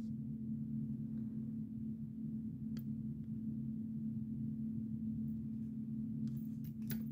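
A steady low hum, one held tone with a weaker, lower one beneath it, and a few faint clicks about three seconds in and again near the end.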